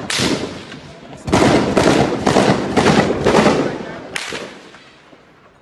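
Gunfire: a shot at the start, then a run of about six shots roughly two a second, each echoing off buildings, dying away about five seconds in.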